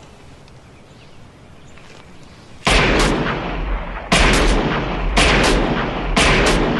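Quiet for nearly three seconds, then four loud gunshots about a second apart, each trailing a long echo.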